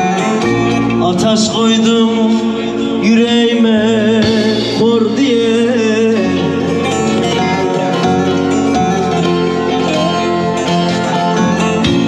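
Instrumental break in a Turkish folk song: a plucked-string melody, with some wavering notes, over a bass line that steps between notes.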